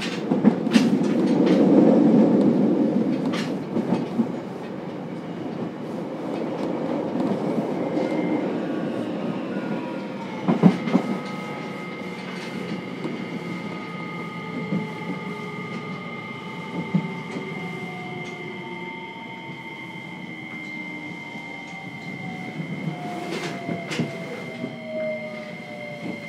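Inside a JR Kyushu 303 series electric train's motor car: wheel and rail rumble, loudest in the first few seconds, then the VVVF inverter and traction motors whine in several tones that slowly fall in pitch over a steady high tone as the train slows, with a sharp knock about ten seconds in.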